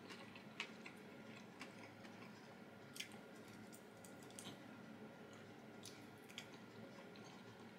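Faint chewing of boiled broccoli, with scattered short soft clicks.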